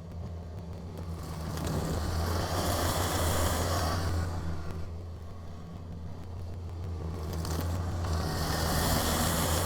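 Kubota BX compact tractor's diesel engine running with a steady low drone. A rushing noise swells twice over it, about two seconds in and again near the end.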